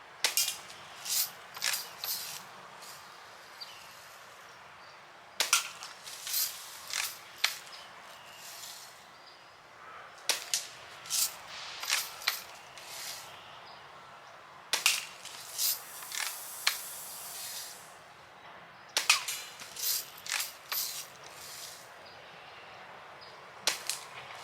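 Daisy Red Ryder lever-action .177 BB gun being fired repeatedly: clusters of sharp snapping cracks and clicks, a new cluster every few seconds, as the lever is worked and shots go off.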